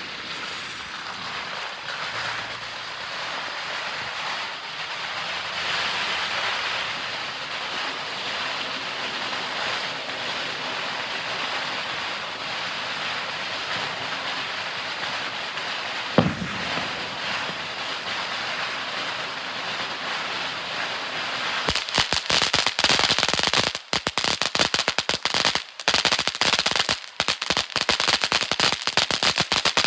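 A Jr Snow Cone firework fountain spraying with a steady loud hiss. A single sharp bang comes about sixteen seconds in. For the last eight seconds the fountain breaks into dense, rapid crackling.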